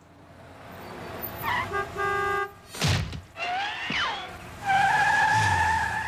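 Cartoon car sound effects: a few short horn toots, a quick whoosh of a car speeding past about three seconds in, then a long, steady horn honk near the end.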